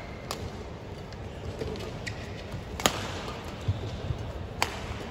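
Badminton rackets striking the shuttlecock during a rally: three sharp cracks about two seconds apart, the middle one loudest, over steady arena hall noise.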